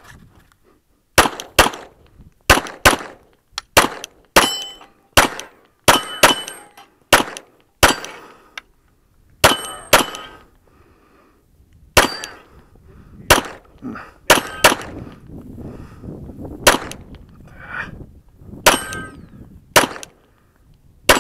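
Glock 34 9mm pistol fired in quick strings, about twenty shots with short pauses, many followed by the ringing clang of steel targets being hit.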